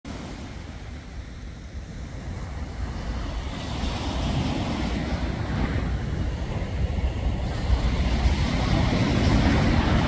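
Sea waves washing onto a pebble beach, with wind buffeting the microphone. The surf grows louder from about three and a half seconds in.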